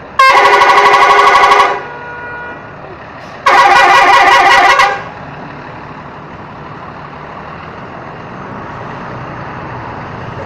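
Bus 'telolet' multi-tone horn sounded twice, each blast about a second and a half long with several tones together. A steady vehicle hum runs underneath.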